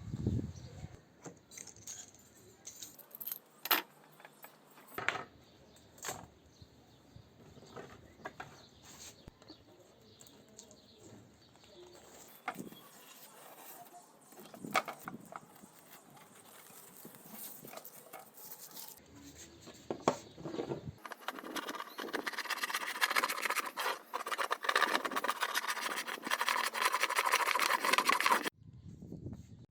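Scattered light knocks and clicks of handling the wooden desk, then about seven seconds of dense, rasping scratching from abrasive work on the wood, which cuts off abruptly near the end.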